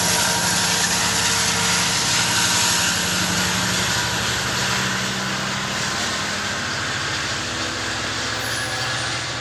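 Passenger train rolling by on the rails, a steady loud rumble of diesel locomotive engine and wheels that begins to fade near the end as it moves away.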